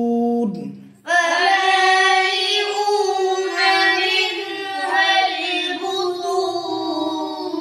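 A long held note of chanted Quranic recitation fades out about half a second in. At about one second a high voice begins singing a wavering melodic line that carries on to the end.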